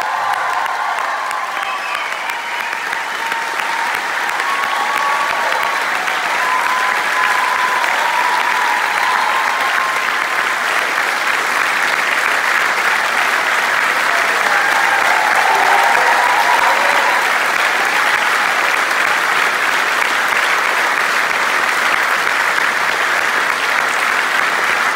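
A full theatre audience applauding, a dense, steady clapping that swells over the first few seconds and then holds.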